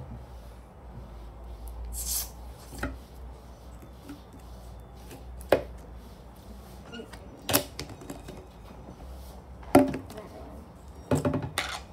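Plastic jar of slime being handled and knocked on a tabletop while the slime is packed in: a few sharp knocks and taps, spread out, with a quick cluster near the end, over a low room hum.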